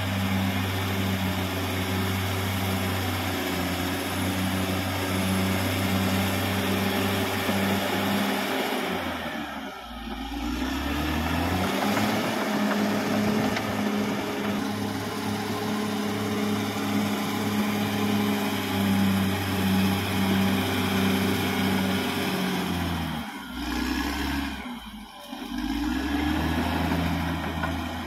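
Caterpillar D6R XL bulldozer's diesel engine running hard and steadily. The revs dip and climb back about a third of the way in, then sag twice briefly near the end before picking up again.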